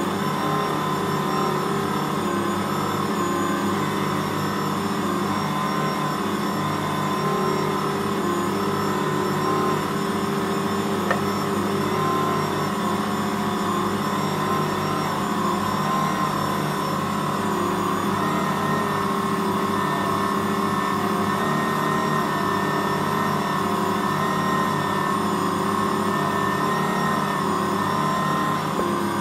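Ankarsrum 6230 stand mixer running steadily while kneading bread dough: an even motor hum with one small click about eleven seconds in.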